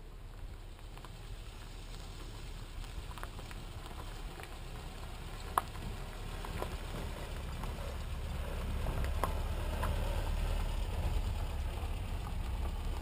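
Small pickup truck driving on a dirt road, its engine and tyres growing steadily louder as it approaches, with a few sharp clicks, the loudest about five and a half seconds in.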